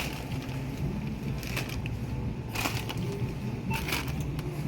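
Items being handled at a store self-checkout: several short clattering knocks and a brief beep about three-quarters of the way through, over a steady low store hum.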